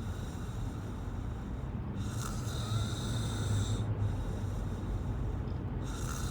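A person snoring in slow, regular breaths about four seconds apart. Each snore is a hissing breath over a low rumble, one about two seconds in and another starting near the end.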